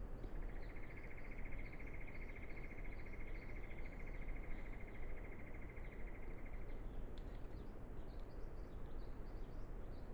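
A small animal's rapid, high-pitched trill, held steady for about six and a half seconds and then stopping, over faint scattered chirps and a steady background hiss.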